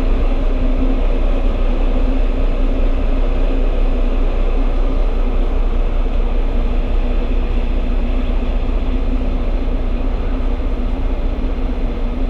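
Car ferry's engines humming steadily, heard from the open deck, with wind rushing over the microphone as a heavy low rumble.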